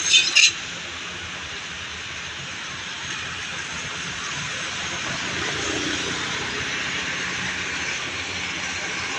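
Steady roadside traffic noise, a rushing hiss of passing vehicles that grows slightly louder toward the end. It follows a brief loud, rapidly pulsing burst in the first half-second.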